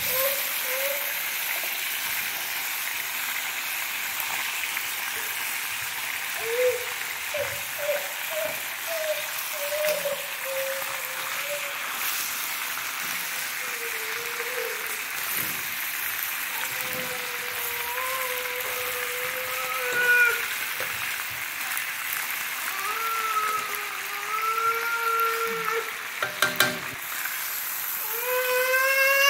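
Chicken pieces and baby potatoes sizzling as they fry in a pan, with a fork clicking against the pan a few times near the end. A baby whimpers and fusses on and off over the sizzling, breaking into a louder cry right at the end as water is poured into the hot pan.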